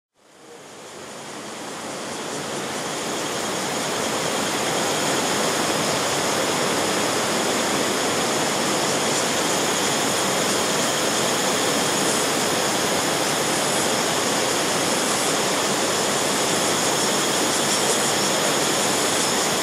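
Steady rush of a mountain river running over rocks, fading in over the first few seconds and then holding even.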